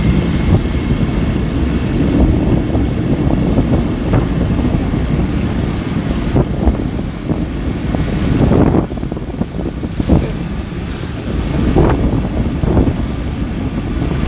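Wind rumbling on the microphone of a phone carried on a moving motorcycle, with the motorcycle running underneath; the rumble swells and dips unevenly.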